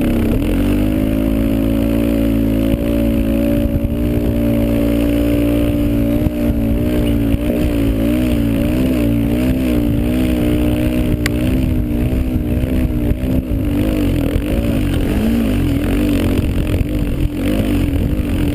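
Engine of a vehicle towing a sled through snow, running steadily; its pitch holds level at first, then wavers up and down through the rest of the run.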